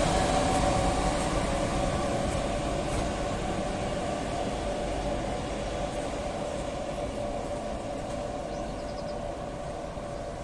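Freight train hauled by the electric locomotive 42.184 rolling away on the rails, its rumble fading steadily as it moves off.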